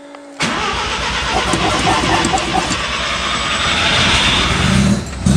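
Mazda RX-7's full-bridgeport rotary engine, fed by a Weber 50 DCOE carburettor, cranking on the starter for about four and a half seconds and then catching and starting to run near the end.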